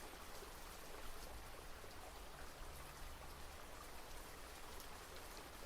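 Faint, steady rain: an even patter of raindrops with no single drop standing out.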